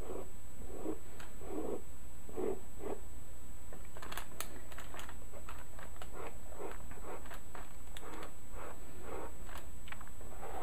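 Two-ended stylus dragged across drawing paper in short strokes, indenting fine hair lines, about one or two strokes a second with a few sharper ticks midway. A steady low hum runs underneath.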